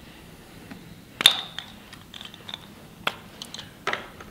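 Precision screwdriver and its metal bits being handled while the bit is changed: a sharp metallic clink with a short ring about a second in, then a few lighter clicks near the end.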